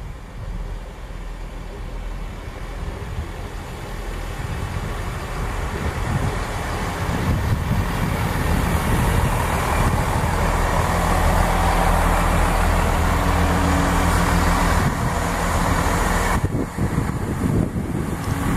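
Class 165 diesel multiple unit approaching and running alongside the platform. Its underfloor diesel engines and wheels on the rails grow steadily louder as it nears and are loudest as the carriages go by.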